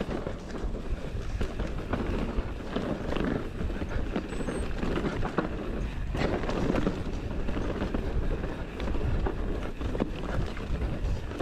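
Mountain bike riding fast down a dirt forest trail: steady tyre noise on the dirt with frequent rattles and knocks over bumps, and wind buffeting the microphone.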